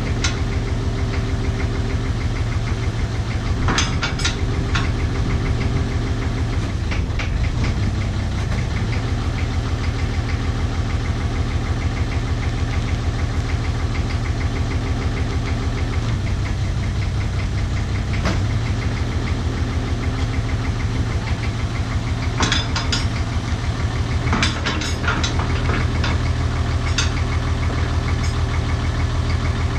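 Backhoe's diesel engine running steadily with a fast, even chug, its note shifting slightly now and then as the hydraulics lift and lower the load. A few sharp knocks come about four seconds in and again about 22 to 25 seconds in.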